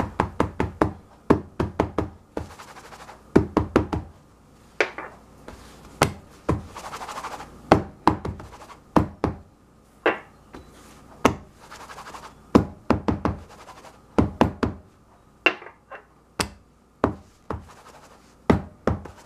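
Small glass jars of chocolate mousse tapped down repeatedly, one after another, to settle and level the mousse. The sharp knocks come in quick runs of several a second, with brief scraping sounds between the runs.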